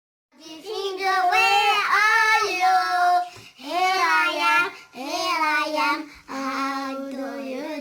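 A child's high voice singing a short melody in four phrases with long held notes.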